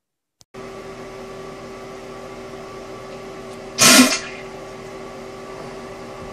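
A steady machine hum with a fixed tone, like a fan or appliance, starting about half a second in. About four seconds in, one short, loud burst of noise cuts across it.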